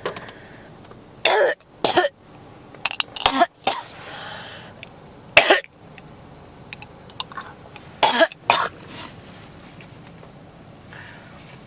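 A person coughing over and over, in single coughs and pairs about half a second apart, with softer breath sounds between the coughs.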